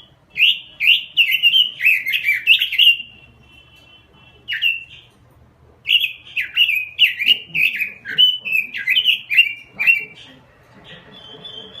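Pekin robin (red-billed leiothrix) singing in full voice: two long rapid phrases of fluty, warbling whistles separated by a pause with a single note, then a short trill near the end.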